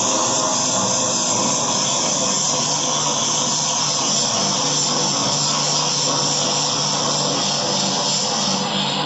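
Handheld electric angle grinder running steadily with a high whine, its disc grinding the edge of a toughened glass sheet.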